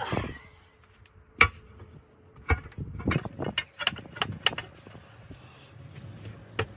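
Irregular metal clanks and knocks from hand tools working a tractor tire's bead over the steel rim, the loudest strike about a second and a half in and a quicker run of knocks a little later.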